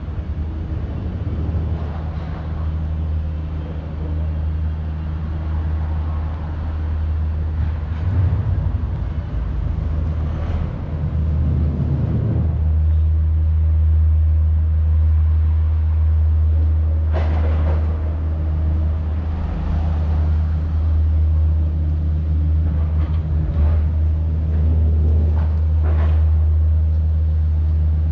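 A motor vehicle's engine running steadily close by, a low hum that grows louder about twelve seconds in, with a few brief higher sounds over it.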